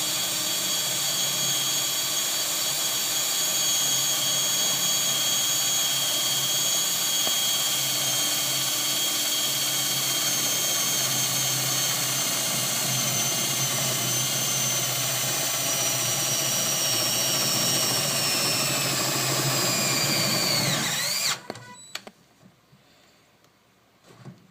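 DeWalt 12-volt cordless drill running continuously in second (high-speed) gear with a steady high whine, which sags slightly in pitch just before the motor stops suddenly about 21 seconds in.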